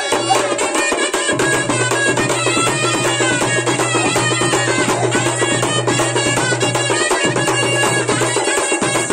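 Live folk band music: a flute playing a wavering melody over rapid, steady drumming.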